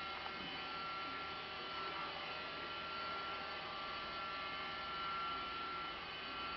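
Steady low electrical hum with a faint, thin high whine held over most of it.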